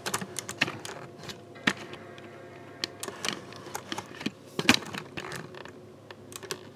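Irregular small clicks, taps and rattles of small computer hardware being handled, with a sharper knock about two thirds of the way through, over a faint steady hum.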